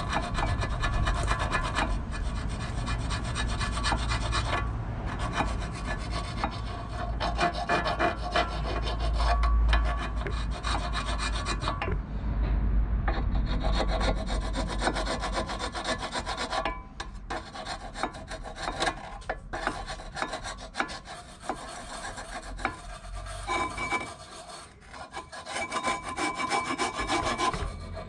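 Flat metal hand file scraping back and forth in quick strokes on a Mini Cooper's front brake caliper carrier bracket, filing the pad seats clean. The strokes get lighter and sparser in the second half.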